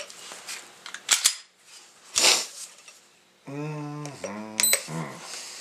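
Clicks and knocks of a Glock pistol and a digital trigger pull gauge being handled on a padded bench mat, with two sharp clicks about a second in. Midway there is a brief wordless murmur from a man.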